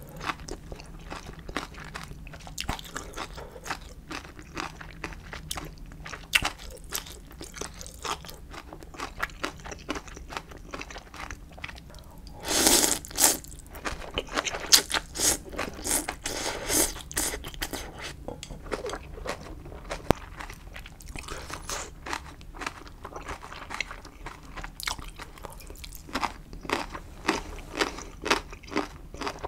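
Close-miked eating of spicy instant ramyeon noodles: wet chewing with many small mouth clicks, and louder bursts of noodle slurping about halfway through.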